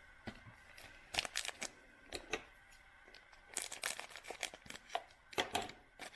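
A Panini Contenders football card pack wrapper being torn open and crinkled by hand, in several short bursts of crackling.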